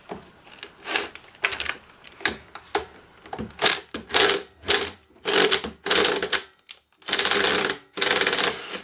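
Cordless impact driver hammering in a dozen or so short bursts, the last two about a second long each, working at a stubborn bolt while the lawnmower's carburetor is taken off.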